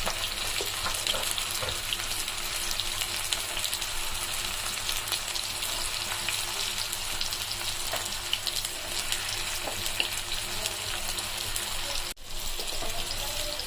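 Chicken balls frying in hot oil: a steady sizzle with constant fine crackling, cutting out for an instant near the end.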